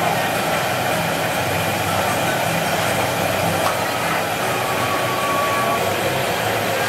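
Oil sizzling in large woks of deep-frying food over gas burners: a steady hiss with a low hum underneath.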